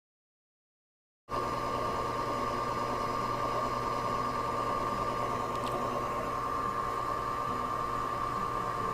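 Dead silence for just over a second, then a steady hum and hiss with a constant high tone that holds without change.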